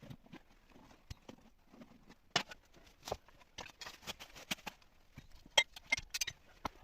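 A string of irregular knocks and clicks, loudest about two and a half seconds in and again past five and a half seconds.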